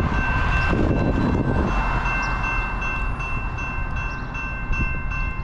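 Railroad grade-crossing warning bell ringing steadily and rapidly, over a continuous low rumble.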